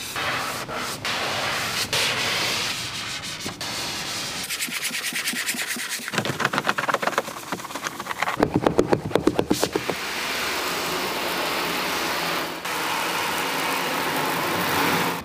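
A pad rubbing over a vinyl car seat, then a brush scrubbing a foam-covered car stereo in quick, even strokes. In the last few seconds, a spray gun hisses steadily as it sprays a car's bodywork.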